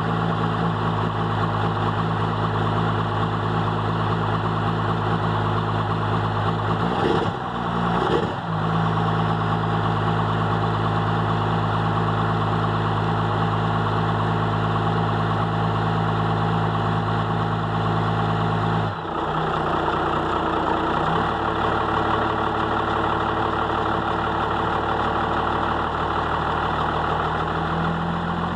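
Cummins inline-six turbodiesel in a Dodge Ram pickup idling steadily while still cold, soon after a −8° start without the block heater plugged in. There are a couple of brief breaks in the sound about a quarter of the way in, and the engine's note changes abruptly about two-thirds through.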